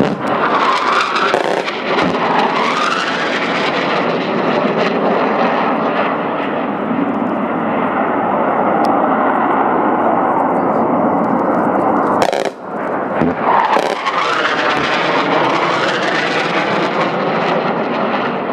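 Military jet flying low past, its engine noise loud and continuous, with a sweeping rise and fall in tone as it passes. There is a brief break about twelve seconds in, after which the jet noise sweeps again.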